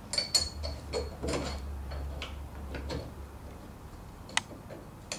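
Light metallic clicks and clinks of the brass gear and spindle of a Lewmar Ocean winch's gear package being fitted by hand onto the centre stem, scattered taps with a sharp one near the end.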